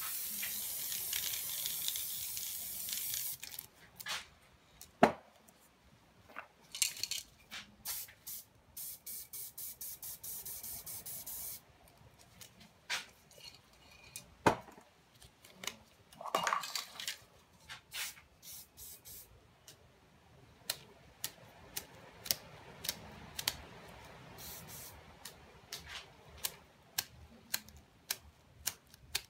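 Aerosol spray paint can hissing in one long spray of about three seconds, then a quick run of short, evenly spaced spurts. Sharp clicks and knocks are scattered between them.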